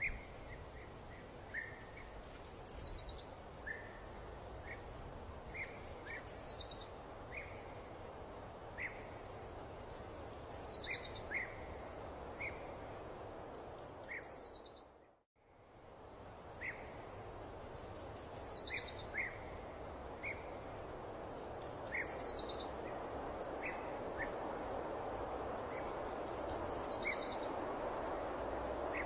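Birdsong over a steady background hiss: one bird repeats a short, high, falling phrase about every four seconds, with brief lower chirps in between. About halfway through, the sound drops out for a moment and fades back in.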